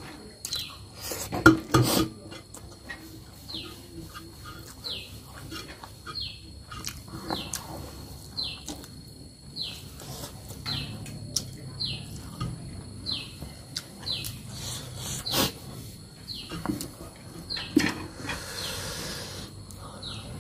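Eating by hand from a metal plate: chewing and lip smacking, with fingers scraping and tapping the plate and a few sharp clicks, the loudest near the start. Behind this, a bird repeats a short falling chirp about once a second.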